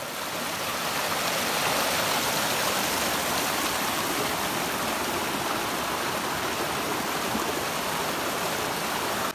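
River white water rushing and splashing over rocks in rapids: a loud, steady rush that swells up in the first second and cuts off suddenly at the end.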